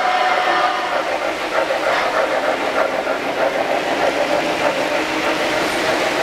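O-scale three-rail model steam locomotive and freight cars rolling past on the layout track: a steady rumble of wheels and motors with light clicks as the wheels cross the rail joints.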